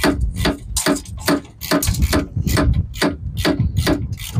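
Metal ratchet clicking in an even run of about two to three clicks a second while the nuts on a chainsaw mill's depth adjustment are turned.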